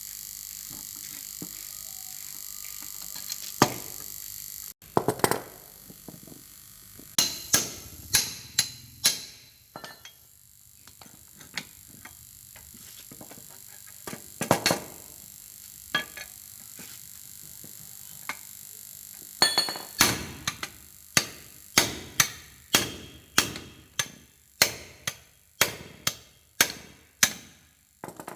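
Repeated hammer blows, scattered at first, then settling into a steady run of about one and a half strikes a second in the last third.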